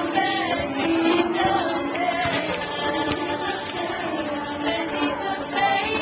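Mixed-voice youth choir singing a holiday song.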